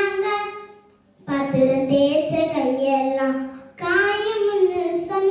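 A young girl singing a Tamil folk song solo, unaccompanied, in long held, wavering phrases. She pauses briefly for breath about a second in and again near the end.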